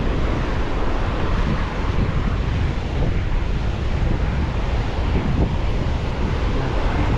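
Steady wind buffeting the microphone over waves washing onto a beach.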